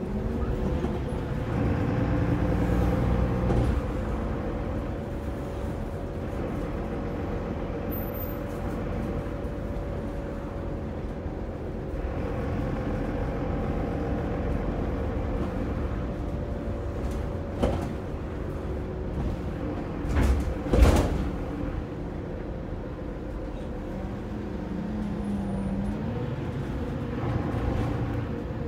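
Mercedes-Benz OM906LA six-cylinder diesel engine of a Citaro city bus running with a steady drone, heard inside the saloon near the rear. A knock comes about two-thirds through, and a louder thump follows a few seconds later.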